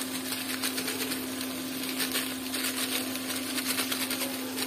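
Ladle stirring and scraping inside a pressure cooker as onion-tomato masala fries. The scrapes come irregularly over a steady low hum.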